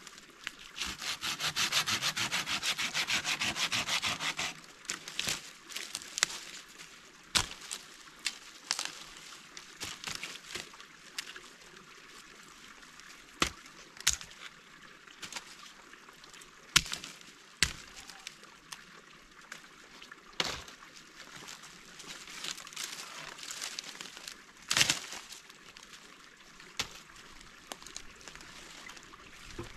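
A hand saw rasping through a branch in rapid strokes for about four seconds, then intermittent sharp cracks and snaps of dry wood being broken, with the loudest cracks near the middle and a heavier crack about three-quarters of the way in.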